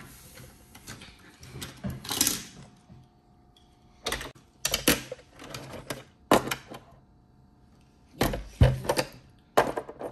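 Die-cast Hot Wheels cars clicking and rattling against a plastic playset track as they are set down and pushed along. The clatter comes in several short bunches with quiet gaps between.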